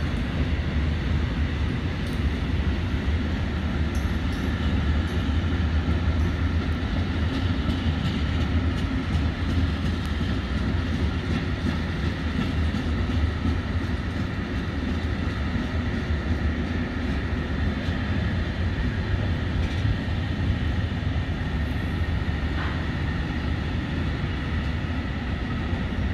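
Freight train of open, tank and covered goods wagons rolling past: a steady rumble of wheels on rail with a thin, constant high whine and a few light knocks from the wheels.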